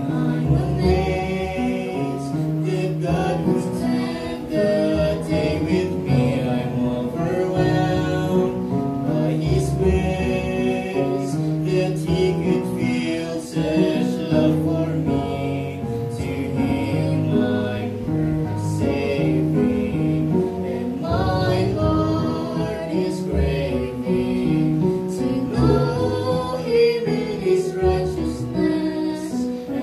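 A gospel song sung as a duet by a young woman and a young man through microphones, with musical accompaniment.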